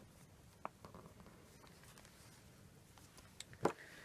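Quiet handling of paper and a paintbrush: soft rustles and a few light taps, with a sharper click a little before the end as the brush is set down.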